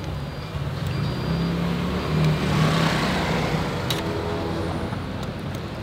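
A motor vehicle's engine hum swelling and then easing off as it passes close by, loudest about halfway through, over general street noise.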